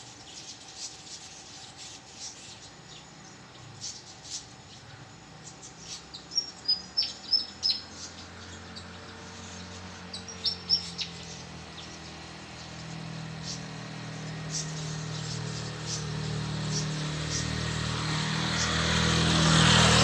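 Malaysian pied fantails calling with short, sharp high chirps, including a quick run of loud ones about six to eight seconds in. A low rumble builds steadily through the second half and is loudest at the end.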